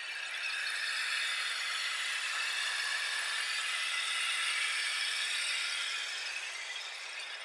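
Handmade eucalyptus-wood and brass rainstick, its river stones cascading down inside in a steady, dense rattling patter like falling rain. It fades gradually near the end as the stones run out.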